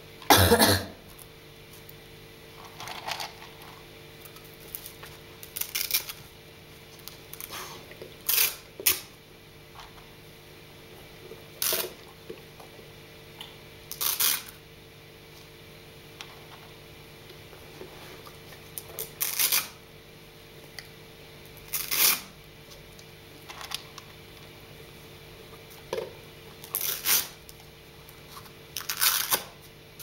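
Velcro strap on a dog shoe being pulled open, a short rasping rip about every two to three seconds, about a dozen times. The first rip, at the very start, is the loudest.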